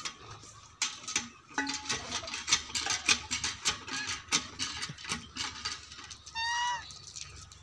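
Cow licking her newborn calf: a run of irregular, wet clicking strokes, several a second. About six and a half seconds in, a short high-pitched call cuts through.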